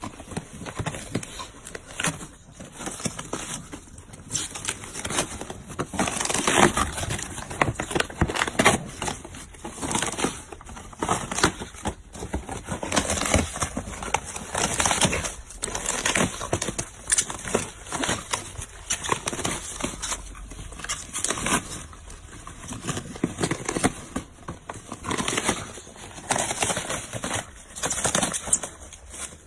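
A dog biting and tearing at a cardboard box and its white polystyrene foam lining: irregular crunching, crackling and ripping.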